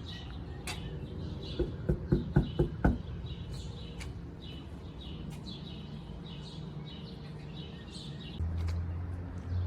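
Small birds chirping over and over. About a second and a half in comes a quick run of six knocks, the loudest sounds here, and a low steady hum starts near the end.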